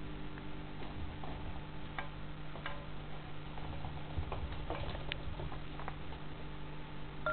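A kitten's paws and claws making light, irregular clicks and taps on the floor and against the bowls, over a steady low hum.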